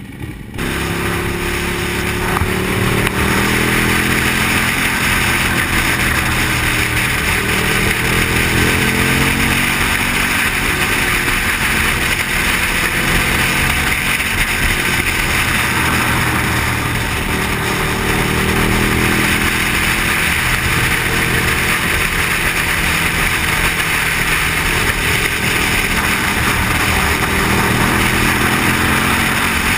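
Motorcycle engine at riding speed, its pitch repeatedly rising as it accelerates through the gears and dropping back, under a steady rush of wind noise.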